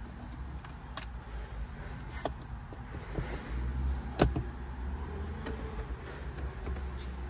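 Plastic switch clicks from the overhead console map-light buttons of a 2020 Ford Expedition being pressed, a few light clicks with one sharp click about four seconds in, over a steady low rumble.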